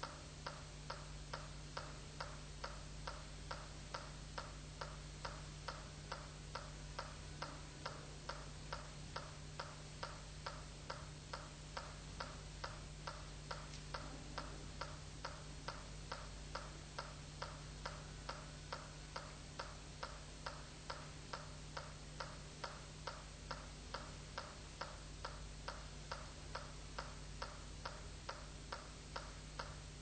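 A steady ticking beat like a metronome, about two ticks a second and evenly spaced, over a low steady hum.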